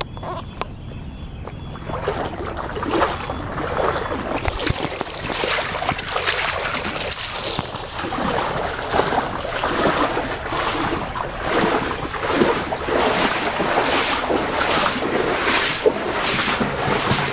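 Floodwater splashing and rushing close to the microphone. It sets in about two seconds in and keeps up as a dense, irregular noise.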